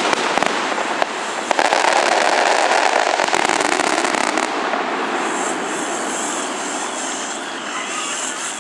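Fireworks going off: dense rapid crackling for the first half, easing into a steadier noise from about halfway through.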